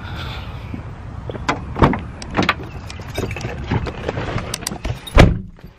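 Someone getting into a car: scattered clicks and knocks of handling, then the car door shutting with a heavy thump about five seconds in.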